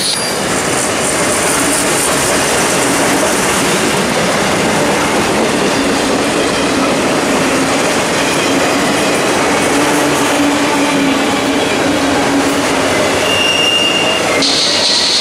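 Freight cars of an intermodal train rolling past at track speed: double-stack container well cars, then enclosed autorack cars, with steady wheel-on-rail noise. A drawn-out low tone runs through the middle, and a brief high whine comes near the end.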